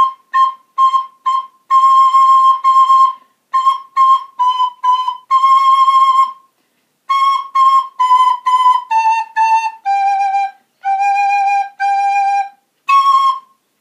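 Soprano recorder playing a simple beginner tune of short detached notes and longer held ones on a few neighbouring notes. It steps down to lower notes near the end and finishes on a higher note.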